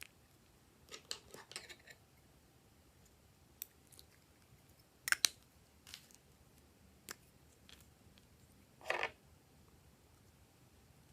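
Slime being handled: scattered small clicks and pops, with a short run of them about a second in, two sharper ones around five seconds, and a longer crackle near the end.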